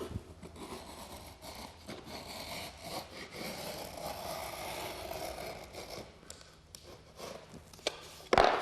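The locking lobe along the groove edge of a laminate plank being shaved off: repeated scraping, rasping strokes with small clicks, and a sharp knock near the end.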